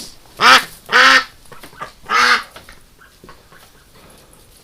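A domestic duck quacks loudly three times: two quacks in quick succession about half a second and a second in, then a third a second later.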